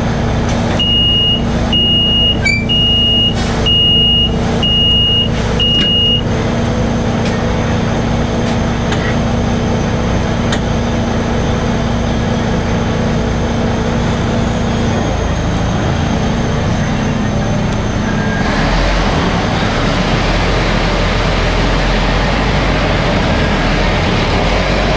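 Sentosa Beach Tram, an articulated road-train bus, standing with a steady hum while a warning beeper sounds six times, about once a second. From about three-quarters of the way through, a deeper rumble and rolling noise rise and stay as the tram moves off.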